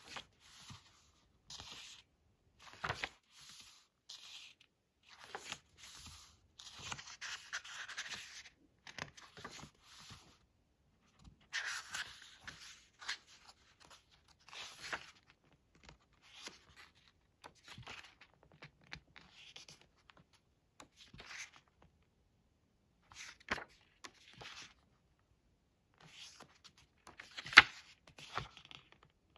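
Pages of a hardcover album photobook turned one after another by hand, the thick paper swishing and rustling in short strokes with small pauses between them. A single sharp tap stands out near the end.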